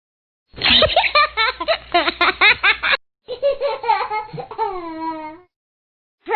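A person laughing hard in quick rhythmic bursts, then a drawn-out laugh that trails down in pitch. After a short pause the laughter starts again near the end.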